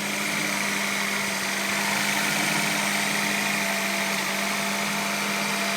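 1995 Acura Integra's four-cylinder engine idling steadily, just started and running smoothly after its ignition coil, distributor cap, rotor and plug wires were replaced to cure a no-start.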